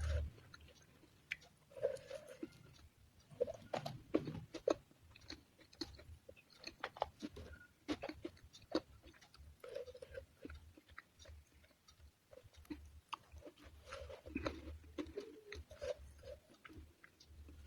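Close-miked mouth eating sounds: quiet chewing with irregular small crunches and wet clicks.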